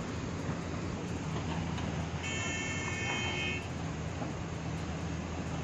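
Steady rush of floodwater pouring through a breached river embankment, with a low engine hum from excavators underneath. About two seconds in, a horn sounds once, held for about a second and a half.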